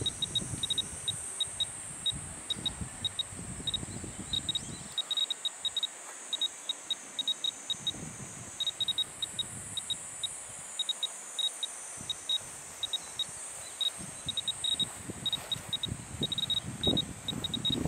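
A radiation dose monitor (Iwatsu SV-2000) chirping short, high beeps at random intervals, a few a second, each marking a detected radiation count. Under it run a steady high hiss and irregular low rumbles of wind on the microphone.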